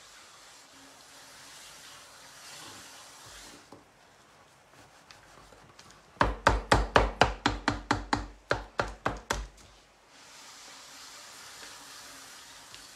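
Gloved hands rubbing wet clay on a pottery wheel head, then, a few seconds in, a quick run of about fifteen loud slaps at roughly four a second as a hand pats the wet black clay down onto the wheel, followed by more rubbing.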